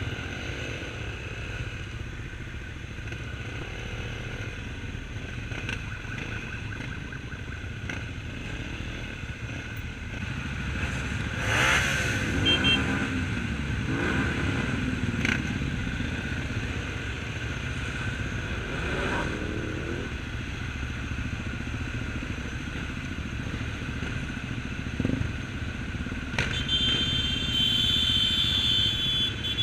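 A pack of off-road rally motorcycles riding slowly together, engines running at low revs, with bursts of revving that rise and fall, the loudest about twelve seconds in. Near the end a high steady tone sounds for a few seconds over the engines.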